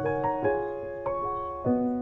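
Background piano music: slow notes struck about every half second and left to ring over one another.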